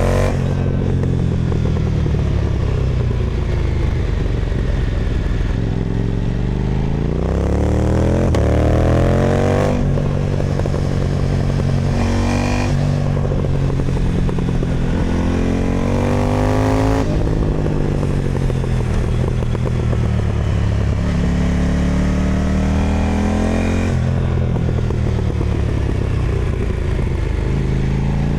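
KTM Duke 990 motorcycle engine through an Austin Racing aftermarket exhaust, accelerating hard up through the gears. Its note climbs in pitch, drops off at each gear shift, then falls away under deceleration before picking up again.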